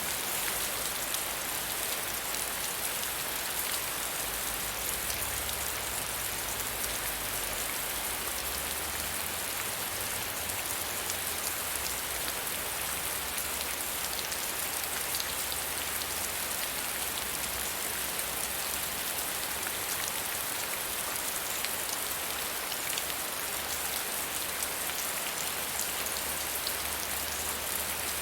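Soft, steady rain falling on a surface: an even hiss with fine scattered drop ticks, under a faint low rumble.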